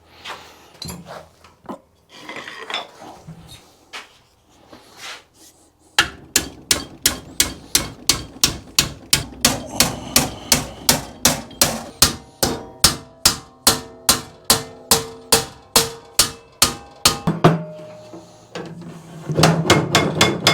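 A hand hammer beats the edge of a sheet-metal motorcycle fuel tank base straight. For about eleven seconds the metal rings with rapid, even blows, about three or four a second. Before the blows there is scattered clatter of the sheet being handled, and more metal rattles and rubs near the end.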